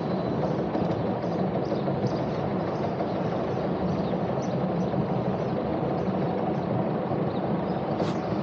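Sailing boat's inboard engine running steadily at low revs, the boat motoring slowly ahead under its single propeller.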